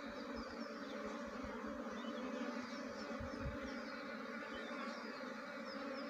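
Honey bee swarm buzzing with a steady hum as the bees settle into a wooden hive box on their own, a sign that the queen has gone in.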